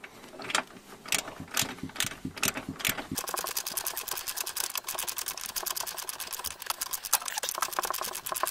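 Ratchet wrench clicking as it drives a long M8 bolt that presses a car's front stabiliser-bar bushing bracket into place: a few separate clicks, then from about three seconds in a fast, steady run of clicks.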